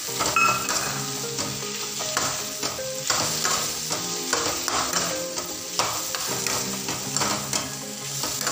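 A metal ladle stirring potato, brinjal and tomato sizzling in an aluminium pan, with repeated scraping strokes roughly one a second, over background music.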